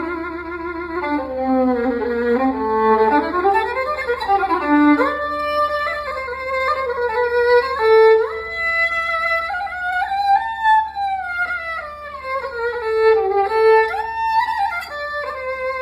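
Solo melody in makam Uşşak played on a bowed string instrument, gliding and sliding between notes.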